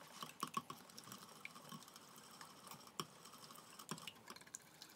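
A liquid custard mixture being mixed by hand in a bowl: faint, quick, irregular clicks and scrapes of the utensil against the bowl.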